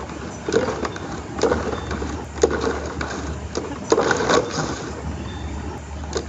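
Recoil starter of a Yard Machines push mower being pulled over and over, about once a second, each pull a short whirring swish as the engine spins freely with its spark plug out. The stiff, weather-gummed starter has just been sprayed with penetrating oil to free it.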